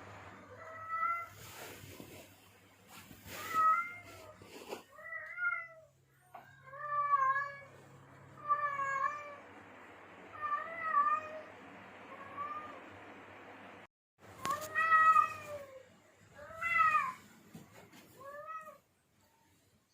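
Male cat in heat giving mating calls: a series of about a dozen drawn-out meows, each rising and then falling in pitch, with short gaps between them. The calls stop about a second before the end.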